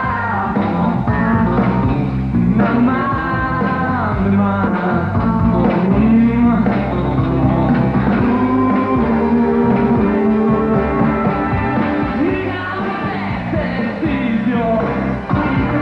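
Rock band playing live on stage, with a singer's voice over the band.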